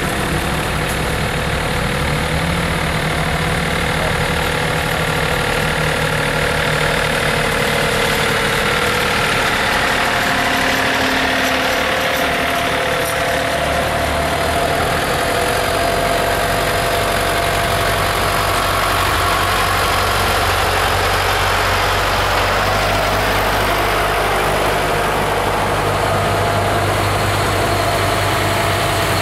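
Diesel engines of a column of John Deere tractors driving past one after another, a steady engine hum. A deeper low hum comes in about halfway through as a larger tractor draws near.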